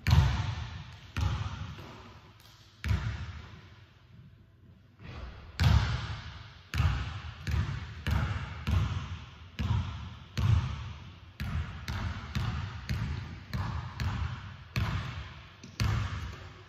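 A basketball bouncing on a hardwood gym floor, each bounce echoing through the big hall. The bounces are slow and uneven at first, then come about two a second.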